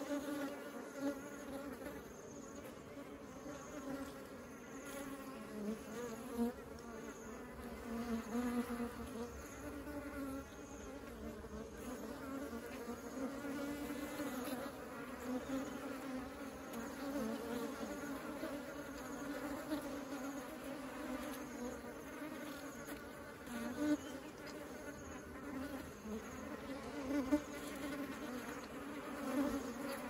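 Many honeybees buzzing together in a steady, wavering hum, with a few louder swells as single bees pass close.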